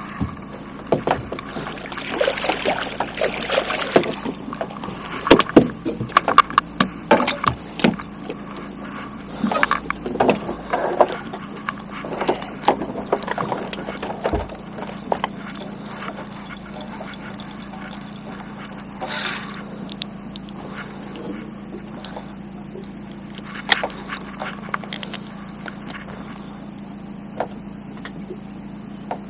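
Knocks and clatter on a small fishing boat, thick for the first dozen seconds and then only now and then, over a steady low hum.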